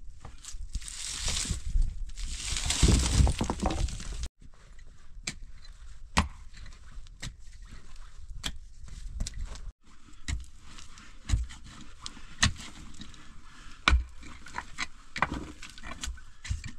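Stony ground being cleared with hand and tool. First comes a stretch of dense scraping and crunching of dirt and gravel. Then there are scattered sharp single knocks of stone being handled.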